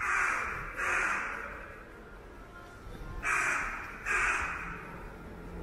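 Crow cawing: four caws in two pairs, the second pair about three seconds after the first.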